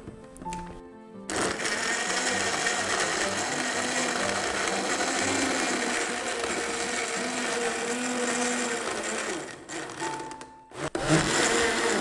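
Personal blender running, blending banana and coffee into a smoothie, for about eight seconds before it stops; a short second burst follows near the end.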